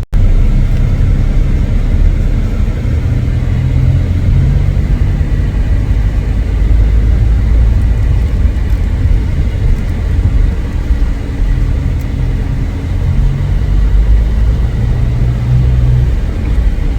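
Loud, steady low rumble of motor vehicle traffic, with engine hum, that begins suddenly and continues without a break.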